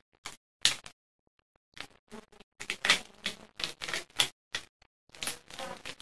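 A 3×3 Rubik's cube being scrambled: its plastic layers turned quickly by hand, giving rapid, irregular clicking and clacking, with a brief pause about a second in.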